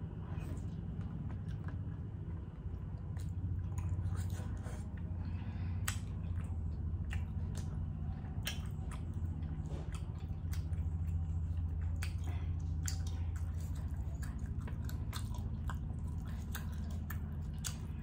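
A person biting and chewing steamed squid, with many short mouth clicks scattered throughout, over a steady low hum.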